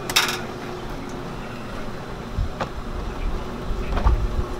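A steady machine hum runs throughout. A sharp metallic click comes just after the start, and a couple of lighter knocks from candy-cutting equipment follow later.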